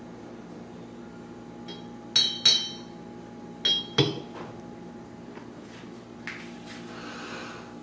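Glass decanter stopper clinking against glass. There are two sharp, ringing clinks about two seconds in, then two more near four seconds as it is set into the decanter's neck, the last with a duller knock.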